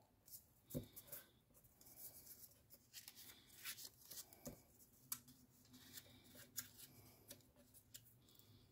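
Faint rustling and crinkling of a small piece of patterned paper being folded and creased by hand, with scattered light taps and two soft knocks on the tabletop, about a second in and again near the middle.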